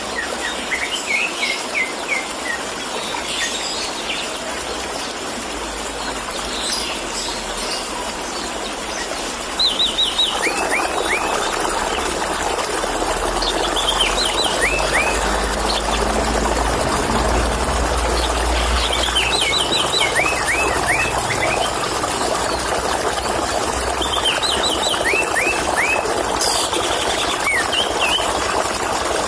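Orange-headed thrush singing in quick runs of short whistled notes over a steady gurgle of running water. The water gets louder about ten seconds in.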